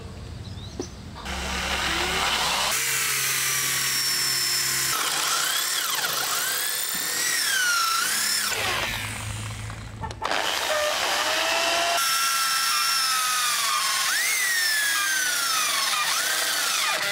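Handheld electric drill boring through steel plate, its motor running under load while the bit squeals in gliding, wavering pitches. The drilling breaks off and starts again a few times.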